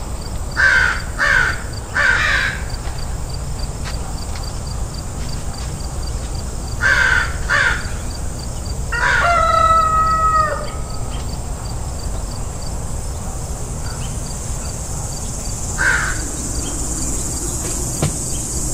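Harsh crow caws in short runs: three in quick succession about a second in and two more around seven seconds. A single longer, steady-pitched call comes around the tenth second, another caw near the end, and a steady low hum runs underneath.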